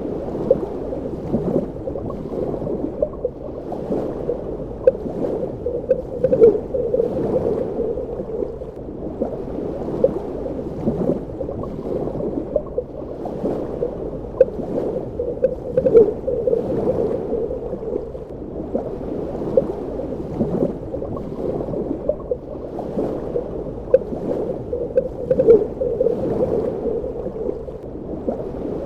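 Underwater ambience: a steady, dull wash of water with frequent small bubbling and gurgling pops, swelling louder every few seconds.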